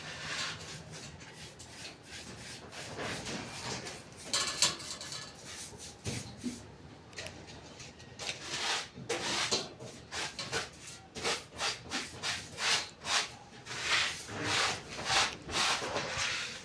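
Rhythmic scraping strokes, as from a hand tool worked back and forth on a surface. They are irregular at first, then settle about halfway through into a steady pace of about two strokes a second.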